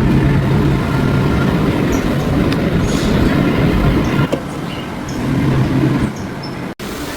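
Samsung washer-dryer drum spinning, with a loud rumbling grind. This is the noise of play in the drum's bearing seat. The rumble eases briefly about four seconds in, then builds again.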